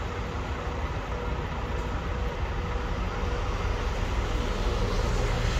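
Steady low engine rumble in a ferry port, slowly growing a little louder toward the end.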